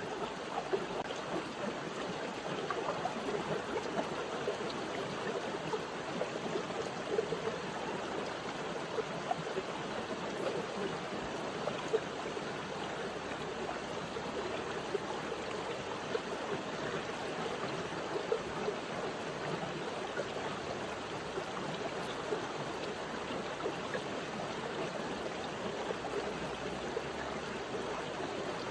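River water running over stones: a steady rush with small splashes and gurgles throughout.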